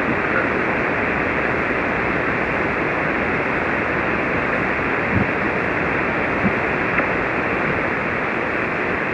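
Ham radio receiver on the 40-metre band with no station transmitting: a steady hiss of band static, narrowed by the single-sideband filter.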